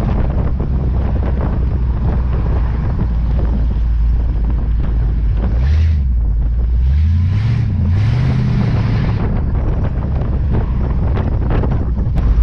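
Hot-rod 350 Chevy V8 engine running while driving, heard under heavy wind buffeting on the microphone. The engine note rises and falls a few times around the middle as the revs change.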